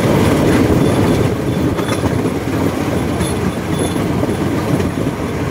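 Open rail car running along narrow-gauge track: a steady loud rumble and rattle of wheels on the rails.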